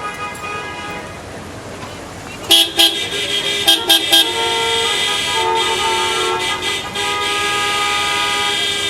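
Car horns honking in city traffic: a few short honks about two and a half seconds in, then a long held horn blast lasting about five seconds, over a steady traffic hum.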